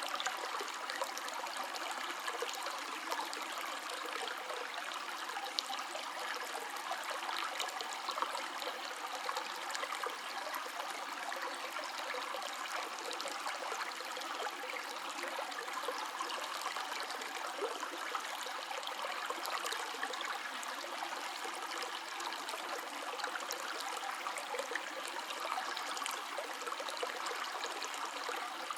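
River water flowing steadily: a constant rushing with many small splashes and trickles.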